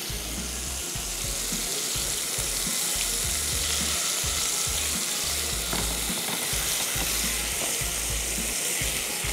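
Food frying in lightly oiled pans: a steady sizzle that grows a little louder about a second in.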